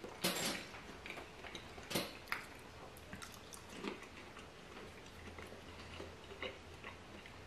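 A man chewing a mouthful of donair dipper, battered donair meat, with a few faint clicks and smacks of the mouth.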